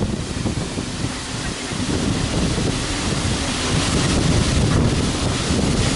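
Steady roar of a tall waterfall mixed with wind buffeting the microphone, growing louder about two seconds in.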